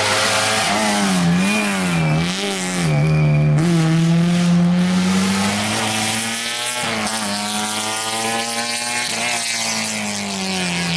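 Peugeot 106 rally car's engine at high revs on a special stage. The revs swing quickly up and down through a bend in the first couple of seconds, then climb through the gears with short dips at each upshift as the car accelerates away.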